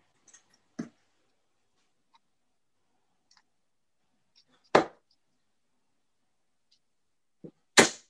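Darts striking a bristle dartboard: two sharp hits, about five seconds in and near the end, with a few fainter knocks between.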